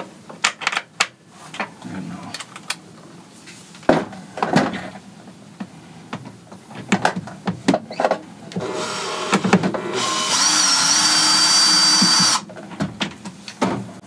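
Power drill-driver undoing the screws that hold an absorber fridge in its cabinet. Loose clicks and knocks of the tool being handled come first, then a short quieter whir, then the motor runs loud and steady for about two and a half seconds and stops abruptly.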